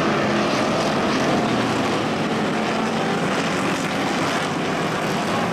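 Engines of a field of figure-8 stock cars racing, a steady, loud, dense din of many engines at once.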